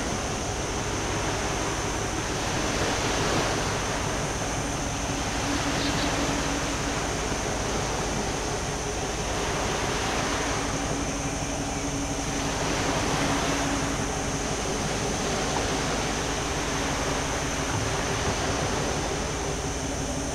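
Sea waves washing against a rocky breakwater, the noise swelling and easing every few seconds, over a faint low hum from the yacht's engines.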